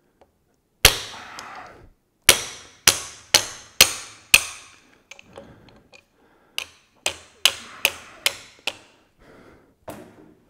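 Plastic-faced hammer tapping a 9/16 in socket used as a drift, driving the wrist pin out of a piston on a 1982 Harley-Davidson Ironhead Sportster. There are about a dozen sharp taps, roughly two a second, each with a short metallic ring. A few lighter taps come in the middle, and the pin is still tight.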